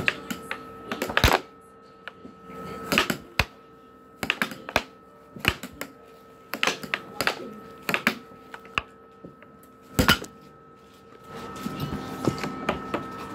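Air hockey rally: the plastic puck cracks sharply off the strikers and the table's rails at irregular intervals, loudest about a second in and again about ten seconds in, over a steady hum.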